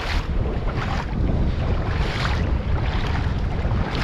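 Wind buffeting the microphone with a steady low rumble, over the wash of shallow sea water at the shoreline, with short swishes several times.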